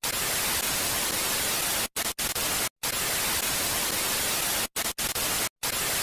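Television static: a steady, loud hiss of white noise that cuts out to silence several times for a split second, in a cluster about two seconds in and again near the end.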